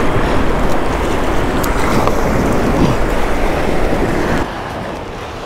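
Steady wind noise with waves washing around the pier; the level drops about four and a half seconds in.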